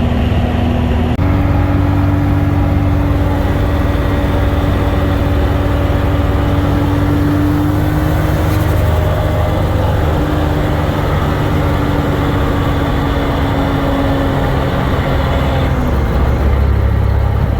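Toyota Chaser's engine running steadily at high revs in fourth gear at freeway speed, with road noise; it is held high because the failing alternator only charges at high RPM. The engine note steps slightly higher about a second in and drops near the end.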